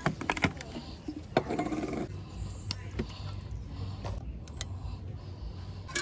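Scattered sharp clicks and knocks of metal hooks and camp cookware being handled and hung on a cord.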